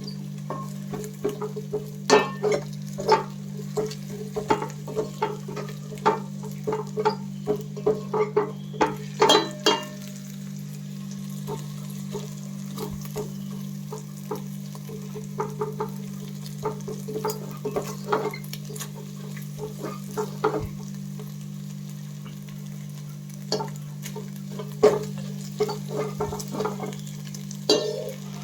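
Beaten eggs frying in oil in a pan, with a spatula stirring and striking the pan: many quick strokes in the first ten seconds or so, fewer after that. A steady low hum runs underneath.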